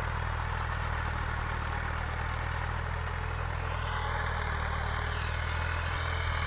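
Fiat 480 tractor's three-cylinder diesel engine running steadily under load as it pulls a tillage implement through the soil.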